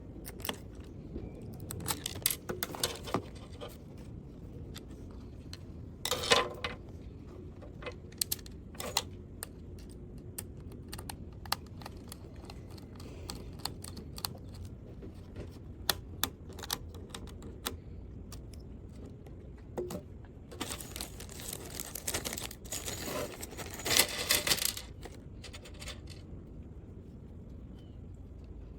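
Small hard parts and packaging being handled: scattered clicks and light knocks, one louder knock about six seconds in, and a longer stretch of rustling and crinkling from about 21 to 25 seconds in.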